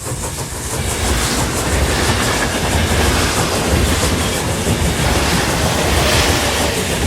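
Train running on its tracks: a steady low rumble and rattle of wheels, fading in over the first second.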